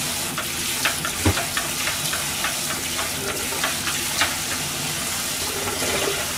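Chicken wings frying in a pan: a steady sizzle with scattered sharp pops and clicks through the first few seconds.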